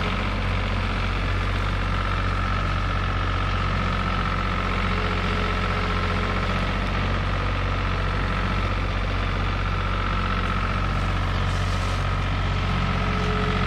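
Tractor engine running steadily while driving a brush hog (rotary brush cutter) through woodland brush, with a steady whine above the engine note.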